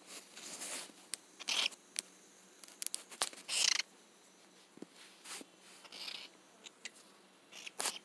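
Cockatiel hissing in several short bursts, the loudest about three and a half seconds in, with sharp clicks in between.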